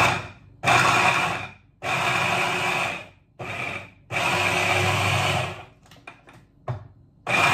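Hand blender grinding raw cauliflower florets, run in repeated short bursts of about a second with brief stops between, a steady high whine over the motor noise, starting up again near the end.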